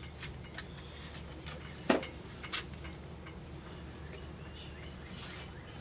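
Light clicks and taps of hands working a rubber gasket onto the edge of a windshield glass, with one sharper knock about two seconds in and a short scrape near the end, over a steady low hum.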